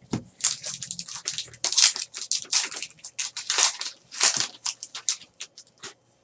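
Trading card packaging and cards being handled: a quick, irregular run of crinkling, crackling rustles of plastic or foil wrapper.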